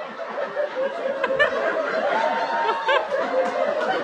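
A small group of people laughing and chuckling together.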